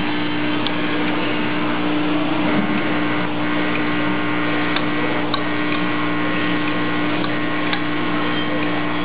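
CTR10N and YCL-02 washer assembly machine running: a steady machine hum with a low tone, with a few short sharp metallic clicks at uneven intervals.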